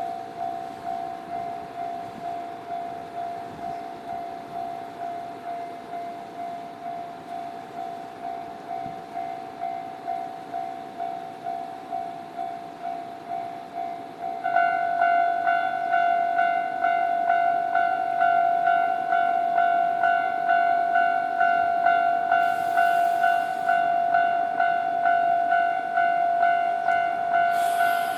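Japanese railway level-crossing warning bell ringing in a steady repeating ding pattern, about two dings a second. About halfway through it becomes louder and a second, higher-pitched ding joins in, and two brief hisses come near the end.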